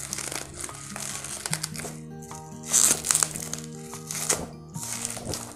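Plastic shipping bag and bubble wrap crinkling as a boxed item is pulled out of it, in irregular bursts that are loudest about three seconds in and again just after four seconds. Background music with sustained notes plays underneath.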